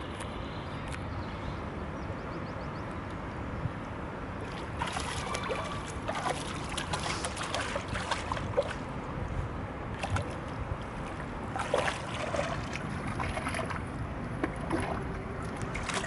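Shallow lake water splashing and sloshing around a wading dog's legs, in irregular bursts from about five seconds in, over a steady rumble of wind on the microphone.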